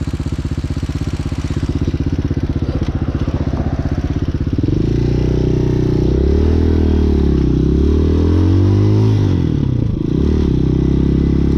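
Hawk 250cc dirt bike's single-cylinder four-stroke engine idles steadily, then pulls away. Its note rises and falls as the revs climb, with a brief dip about ten seconds in before it settles again. The valve lash is freshly adjusted, and the owner thinks the engine may still be slightly off tune.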